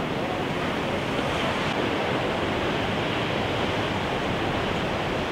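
Steady wash of ocean surf, with some wind.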